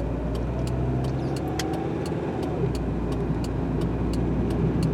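Car interior noise while driving: a steady low engine and road hum, with a faint sharp tick repeating two or three times a second.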